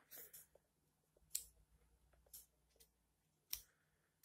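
Faint, scattered clicks of a screwdriver tip and small metal parts in a Shimano Zee shifter mechanism being handled and screwed back together, a few clicks about a second apart.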